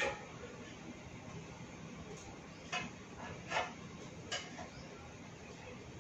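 Tailor's shears closing with a sharp snip. Then come three light clinks less than a second apart as the cut cloth is handled and smoothed flat.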